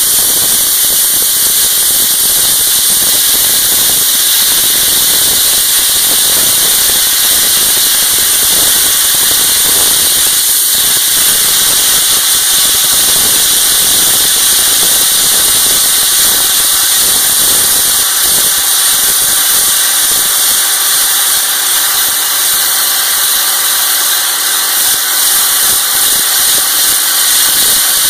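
Slurry blaster running continuously: a loud, even hiss of compressed air, water and abrasive from the blast nozzle stripping paint off concrete, with an engine running steadily underneath.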